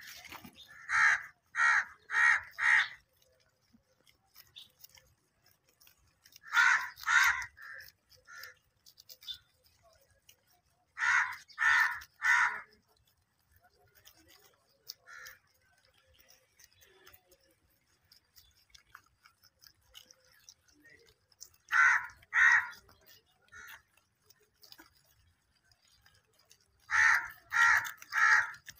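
A bird cawing in short runs of two to four harsh calls, with a run every few seconds.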